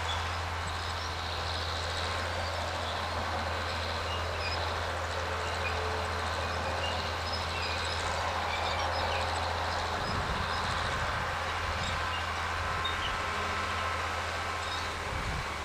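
John Deere 4010 tractor engine running steadily under load, pulling a chisel plow.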